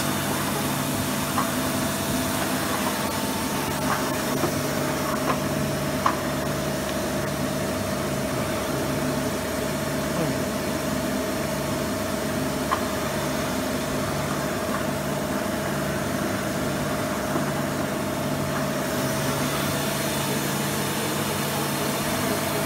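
Mazak INTEGREX 400 SY CNC multitasking lathe standing powered up: a steady machine hum with a constant whine above it, and a few light ticks.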